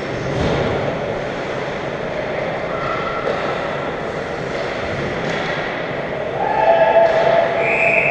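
Ice hockey rink ambience: a steady wash of noise from skating and play at the far end of the ice, echoing in the arena. Near the end a few held tones at different pitches rise over it and are the loudest part.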